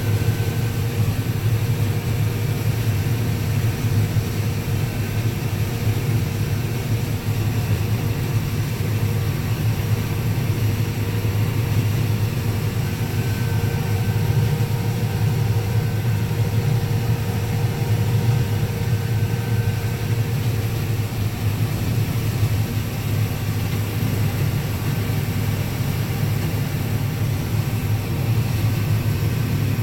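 Combine harvester running steadily while shelling corn: a constant low engine and machine drone with a faint steady whine above it.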